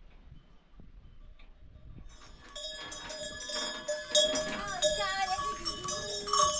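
A flock of goats and sheep bleating, with livestock bells ringing, growing louder from about two seconds in.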